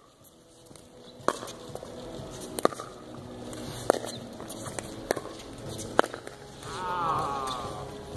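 Pickleball rally: paddles striking a plastic pickleball, five sharp pops about a second apart. A short falling call is heard near the end.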